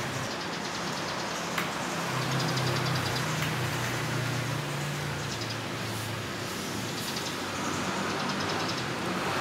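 Street ambience with a motor vehicle engine running, its low hum strongest for a few seconds in the first half, over a steady wash of background noise. One sharp click comes about one and a half seconds in.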